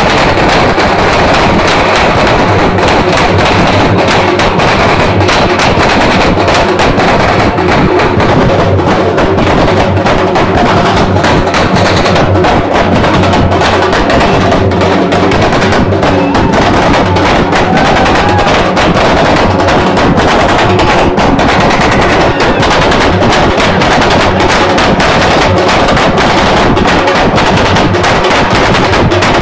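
Loud, fast drumming by a percussion group, with dense rolls of strikes running on without a break.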